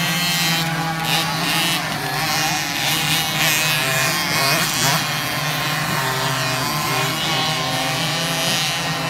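Several 50cc two-stroke motocross bikes racing together. Their engine notes overlap and rise and fall as the riders throttle on and off, busiest about halfway through.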